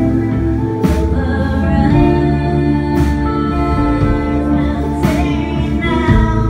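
Live band music: electric guitar and electric bass playing a song, with a woman singing and a sharp hit about every two seconds.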